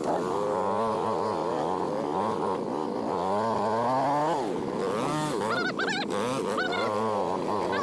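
Dirt bike engines revving hard, their pitch rising and falling again and again as a bike labours up a steep, loose section where it is getting stuck.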